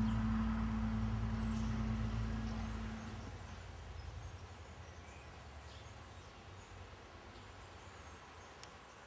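Low steady drone with a deep rumble, fading out over a few seconds. The drone drops away about three seconds in, leaving faint hiss and a few faint high chirps.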